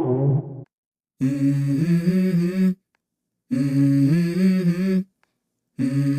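Background music: a wordless hummed vocal in three phrases of about a second and a half each, with short silences between them, just after the previous track fades out.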